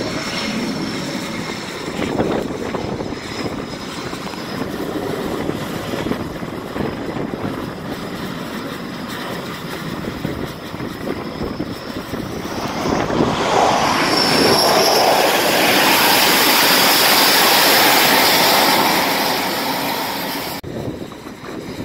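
Jet engine noise from an F/A-18 Super Hornet on the carrier flight deck. A steady rush in the first half grows much louder about halfway through, with a high turbine whine, and cuts off abruptly near the end.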